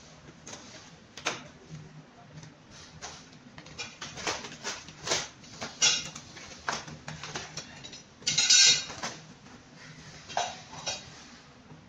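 Scissors snipping and white foam packing wrap being handled and pulled away, a string of short sharp clicks and crinkles, with a louder stretch of rustling about eight seconds in.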